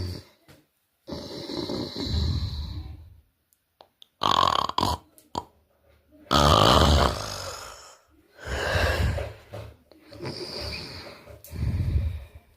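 A person snoring heavily: about six irregular snores and snorts of one to two seconds each, separated by short silent pauses. The snorer says they have sleep apnea.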